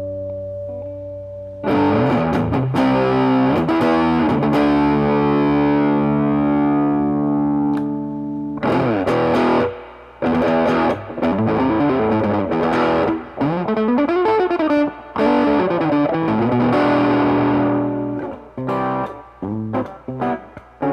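Electric guitar (Reverend Pete Anderson PA-1) played through a Mesa Boogie 5:25 Express 1x10 tube combo amp. A chord rings out and fades, then a new chord is struck about two seconds in and left to sustain. Then come single-note phrases with a few bent notes, ending in short choppy chord stabs.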